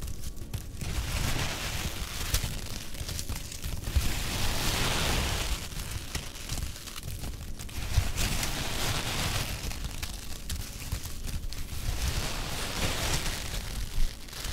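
Foam packing peanuts rustling as white-gloved hands rummage through them in a cardboard box, swelling and easing in waves with a few sharper clicks.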